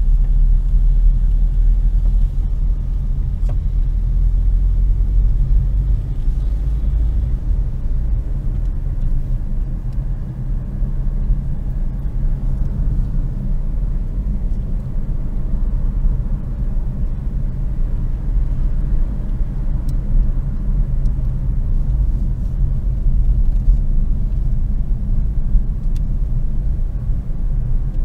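A car driving along a road, heard from inside: a steady low rumble of engine and tyres.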